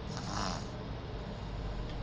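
Baby snoring: one short snore about half a second long just after the start, over a steady low hum.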